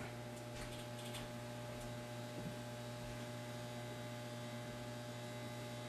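Steady low electrical mains hum over a light hiss.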